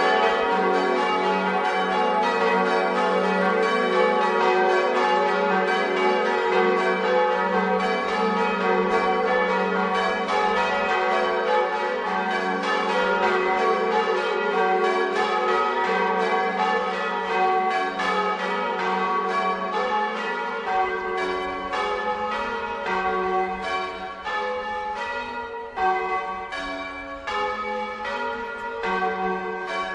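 A peal of church bells rung in the Bolognese tradition: bronze bells struck in quick, overlapping succession, their tones ringing on into one another. Near the end the strikes thin out and come more spaced apart.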